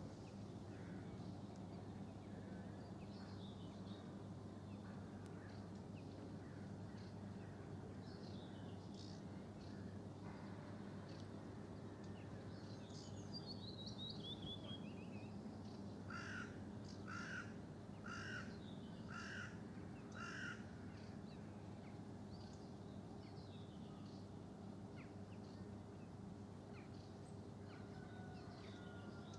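Faint outdoor birdsong over a steady low hum. About halfway through, a crow caws five times, roughly once a second, among scattered small bird chirps and a short descending trill.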